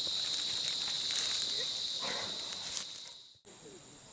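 Forest insect chorus, crickets or cicadas, making a steady high-pitched drone. It cuts off abruptly about three and a half seconds in and gives way to a quieter, higher-pitched insect drone.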